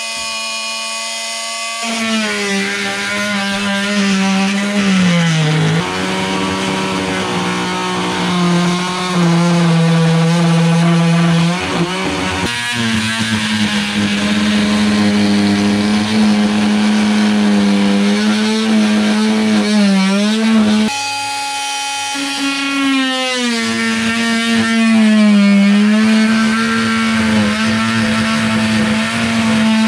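Oscillating multi-tool with its blade plunge-cutting an access hole through a travel trailer's thin ceiling panel and the plywood backer behind it. A loud, steady buzz whose pitch dips several times as the blade bites harder and then picks back up.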